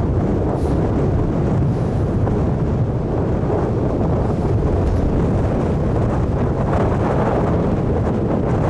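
Strong storm wind blowing over the microphone: a loud, steady rumbling noise that carries on without a break.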